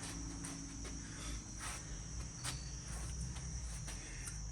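A steady high-pitched insect trill, with a few faint knocks and footsteps over it.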